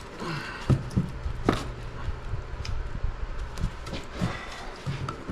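Scattered metal knocks and clunks of a wrench working a large hydraulic-cylinder nut being tightened to high torque, two sharp knocks standing out in the first second and a half, over a steady low electrical hum.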